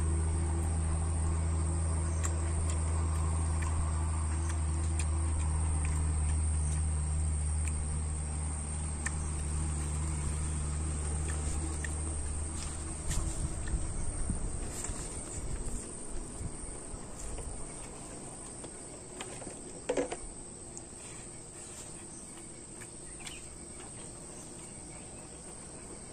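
Insects, crickets among them, chirping steadily in the background, with a strong steady low hum that stops about halfway through.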